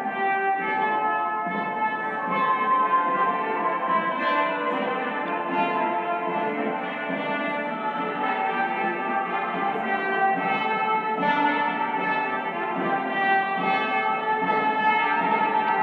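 Early-music ensemble playing medieval-style music from a vinyl LP: several held instrumental tones layered together at a steady level.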